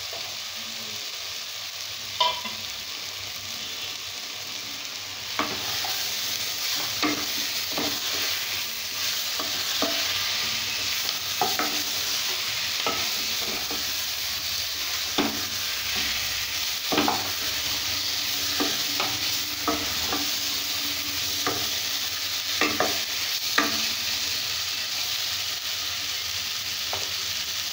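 Sliced button mushrooms frying in hot oil with onion-tomato masala in a non-stick pan: a steady sizzle that grows louder about five seconds in, while a wooden spatula stirring them knocks against the pan every second or two.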